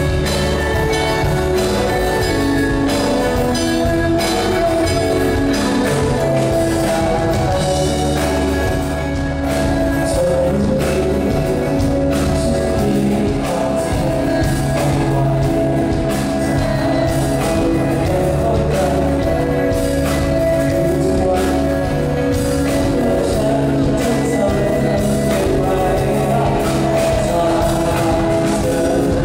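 Live band playing a song: electric guitar, acoustic guitar and drums under a lead singer, heard from among the audience.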